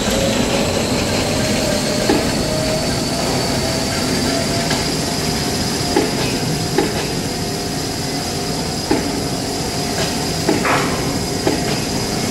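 Glue-lamination kitchen towel and toilet paper machine running: a steady mechanical din with a thin whine that slowly rises in pitch, and a few sharp knocks scattered through.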